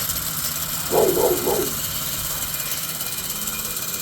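Box fan with an old steel-spoked bicycle rim fitted in place of its blades, running with a steady whirring hum and a fast, even beat. A brief voice-like sound comes about a second in.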